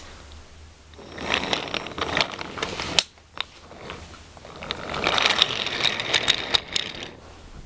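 Wooden toy train pushed by hand along wooden track, its wheels rattling and clicking as it rolls. It goes by in two passes with a sharp click between them.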